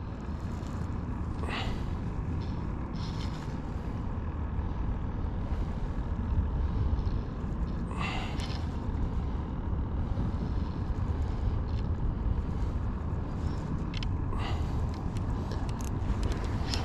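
Steady low rumble of wind and water around a boat on open water, broken three times by a brief hiss, about a second and a half in, at about eight seconds, and near the end.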